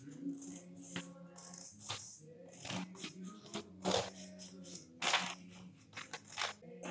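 Background music: a song with held notes and a steady beat of about one hit a second.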